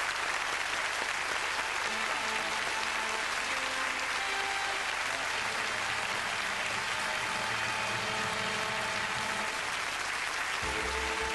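Studio audience applauding steadily, with music playing underneath; the music's bass comes in strongly near the end.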